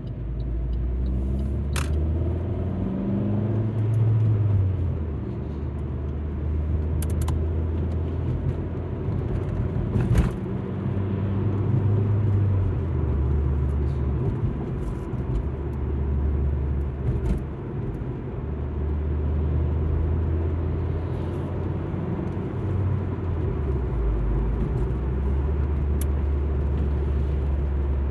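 Alfa Romeo MiTo driving, heard from inside the cabin: a steady low engine and road drone whose pitch steps up and down every few seconds as the revs change. A few sharp clicks sound along the way.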